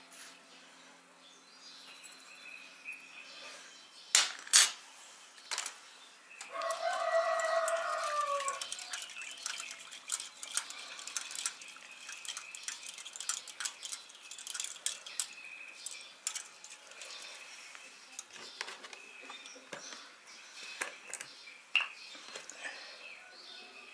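Metal spoon stirring a yeast mixture in a ceramic bowl, clinking and scraping against the sides, after two sharp knocks. About six seconds in, a pitched call lasting about two seconds sounds over the stirring and is the loudest thing heard.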